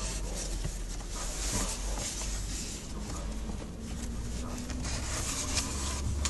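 Hands handling plastic trim and an air filter: rubbing and scraping with scattered light clicks, over a low rumble.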